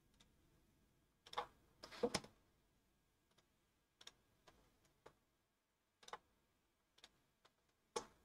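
Faint computer mouse clicks and keyboard key presses: a quick cluster about one to two seconds in, then single clicks every half second to a second.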